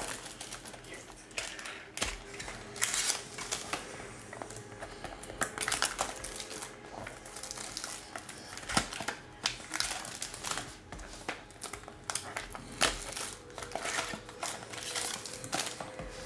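Clear plastic wrapping on a trading-card pack crinkling and tearing as it is opened and handled, in a run of irregular crackles.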